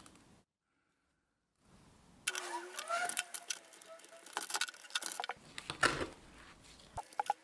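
Rusty VW T25 Syncro brake caliper parts clinking, clattering and scraping against each other and the workbench as they are handled, with a few short squeaks of metal rubbing on metal. It starts about two seconds in.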